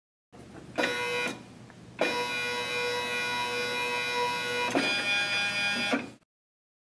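Zebra 110Xi4 thermal label printer's stepper-driven platen feeding labels during media calibration: a steady multi-tone whine that runs briefly, drops back, then runs steadily, its tone changing a little before it stops abruptly.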